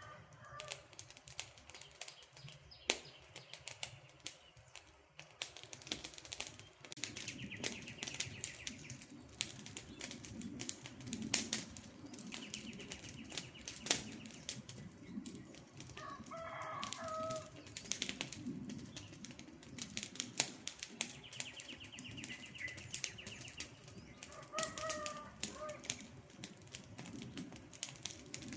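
Campfire burning, with dense sharp crackles and pops over a low rush of flame. A bird calls briefly three times, and a faint high trill comes and goes in the background.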